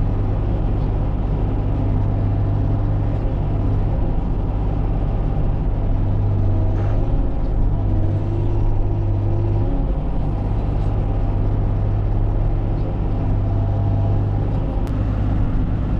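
Bobcat E40 mini excavator's diesel engine running steadily under work, a constant low hum with a brief shift in its note about halfway through.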